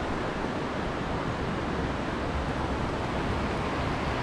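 Steady rushing of a mountain river running over rocks beside the road, an even noise that hardly changes.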